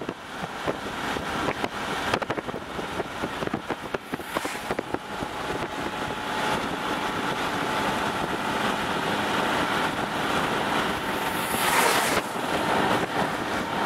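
A car being driven, with steady road and wind noise that builds slowly and rushes louder for a moment near the end.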